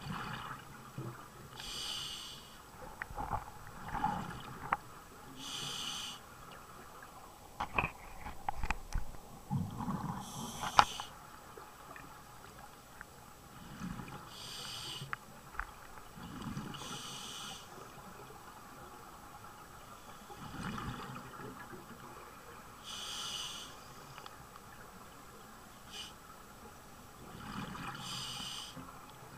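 Scuba diver breathing through a regulator underwater: a short hiss with each inhale about every four to five seconds, and bubbling from each exhale in between. A few sharp clicks and knocks of gear in the first ten seconds or so.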